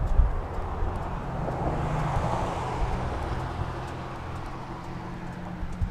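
A car passing on the road, its noise swelling to a peak about two seconds in and then fading away, over a steady low rumble.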